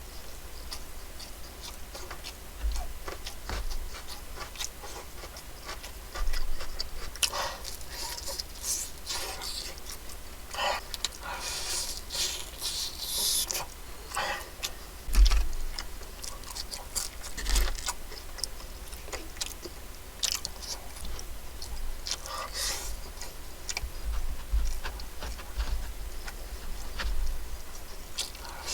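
Close-up eating sounds of fried chicken and fries-style food: chewing and crunching, with irregular sharp clicks and short crackly bursts.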